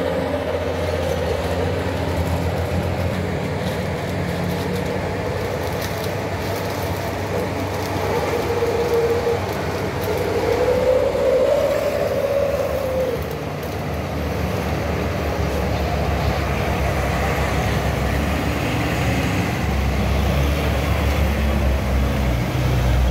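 Heavy diesel trucks labouring slowly up a steep hairpin under load, the engines running with a low rumble and a wavering whine that rises and falls a little before the middle; a deeper engine rumble swells near the end as another heavy truck climbs past.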